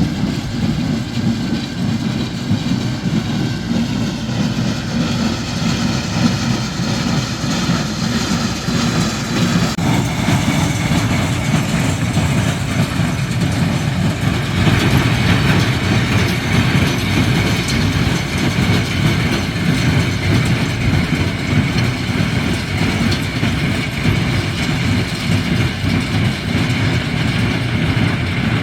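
Tractor engine running steadily while pulling a hay baler, the baler's machinery working along with it, a little louder about halfway through.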